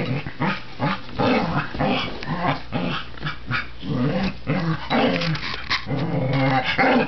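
Half-dachshund, half-black-Labrador puppy growling in play as it squirms on its back: a steady run of short, grumbling growls, several a second, with some sharp clicks mixed in.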